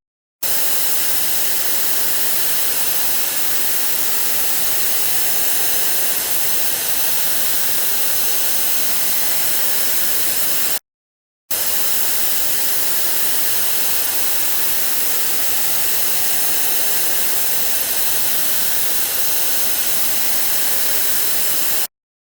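Television static: a steady, even hiss of a TV set with no signal. It plays in two long stretches, with a brief silent break about eleven seconds in.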